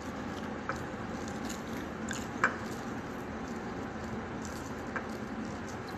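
Eating by hand: wet chewing and the squish of rice gathered with the fingers on a plate, with a few small clicks, the sharpest about two and a half seconds in, over a steady hiss.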